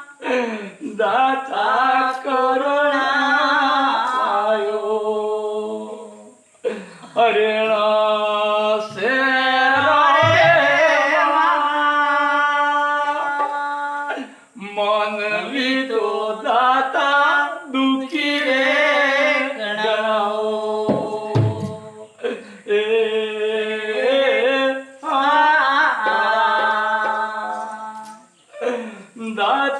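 Folk artists singing a song in phrases of about eight seconds with brief breaks between them, over a steady low drone.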